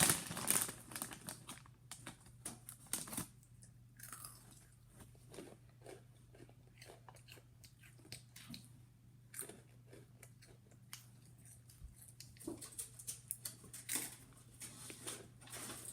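A person chewing crunchy food close by, with irregular crunches and clicks that are busiest at the start and again in the last few seconds. A faint steady hum runs underneath.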